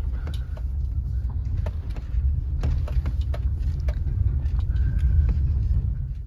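A car's cabin while driving: a steady low engine and road rumble, with scattered small knocks and rattles.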